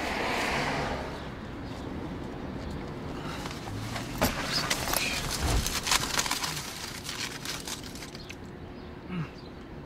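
Rustling and crinkling of a bag and food wrapper being handled, a burger taken out and passed over, with a cluster of crisp crackles in the middle.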